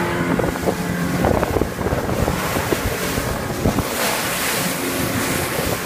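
Water rushing and spraying along a RIB's hull as it runs through waves, with irregular slaps of water against the hull and wind buffeting the microphone. The Yamaha outboard's steady drone is heard only at the very start before the water noise covers it.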